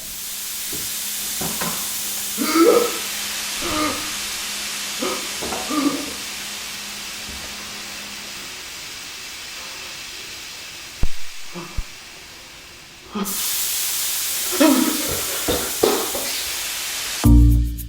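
A steady loud hiss with short bursts of voice over it. It drops out about thirteen seconds in and comes straight back.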